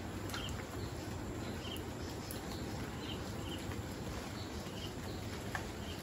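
Steady rain falling on foliage, with faint drips ticking now and then. Short high chirps from a bird or insect repeat about once a second over the rain.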